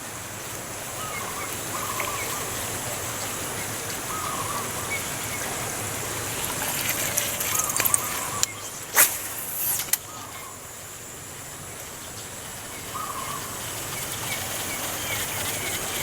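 Outdoor creekside ambience: short chirping bird calls come and go over a steady high-pitched hiss. A sharp swish about nine seconds in is the loudest sound, followed by another a second later.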